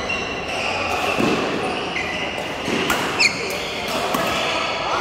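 Badminton play in a large, echoing hall: sharp clicks of rackets striking shuttlecocks, a few seconds apart, and high squeaks of shoes on the court mats, with indistinct players' voices behind.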